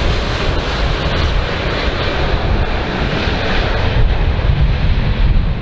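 Airbus A400M turboprop transport flying low overhead: an even rushing engine noise over a heavy low rumble of wind on the microphone. The highs fall away about four seconds in.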